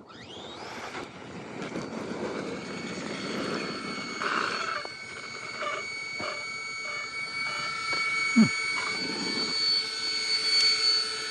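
Radio-controlled car's electric motor whining at a steady high pitch over a rushing noise, with a single knock about eight seconds in.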